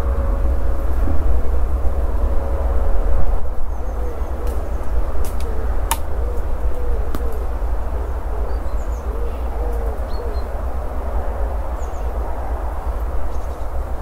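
Outdoor field recording: a steady low rumble, with a pigeon cooing in a repeated phrase for several seconds from about four seconds in. A few faint small-bird chirps and a single sharp click about six seconds in.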